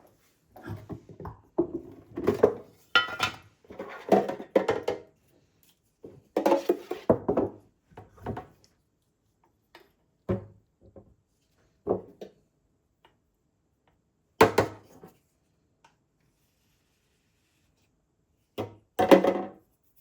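Household objects being handled and set down: clusters of knocks and clatters for the first several seconds, then single knocks spaced a couple of seconds apart, and a last short clatter near the end.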